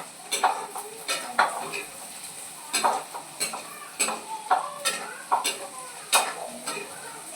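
Beans and potato sabzi being stirred in a pan over a light sizzle, with repeated scrapes and knocks of the stirring utensil against the pan.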